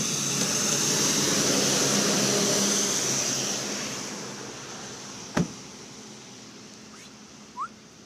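A vehicle passing by: an even rush of engine and tyre noise that swells and then fades away over the last few seconds. A single sharp click about five seconds in.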